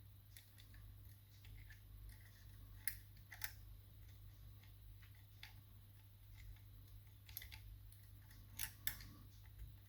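Faint, scattered clicks of lever-lock picking tools working the levers inside a five-lever mortice lock, over a steady low hum.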